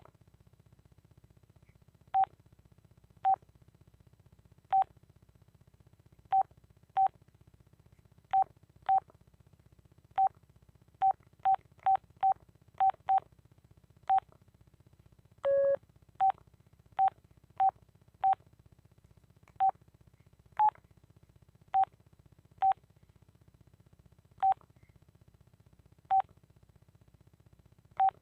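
Telit mobile phone's keypad beeping at each key press: short beeps all at one pitch, at irregular intervals and sometimes in quick runs, with one longer, lower tone about halfway through.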